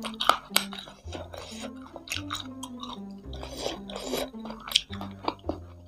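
A backing tune with a plodding bass line, over close-up chewing and wet mouth clicks from eating crispy-fried chicken feet in sauce.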